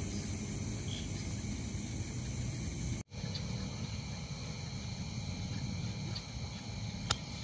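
Night insects, crickets among them, chirring steadily over a low rumbling background. There is a short break about three seconds in and a single sharp click near the end.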